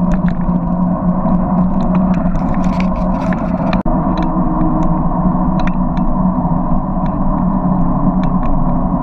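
Riding noise from a camera mounted on a Rad Runner electric bike in motion: steady wind and road rumble with a low hum and scattered ticks and rattles. The sound cuts out for an instant about four seconds in.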